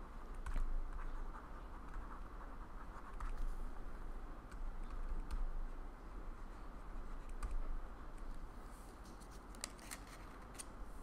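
Faint scratching of a stylus writing on a digital writing tablet, with a few sharper clicks near the end, over a steady low mains hum.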